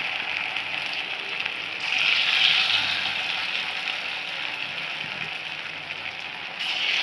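Veg pakoda batter sizzling as it deep-fries in hot oil: a steady, hissing crackle of bubbling oil. It swells about two seconds in and again near the end, as another piece of batter goes into the oil.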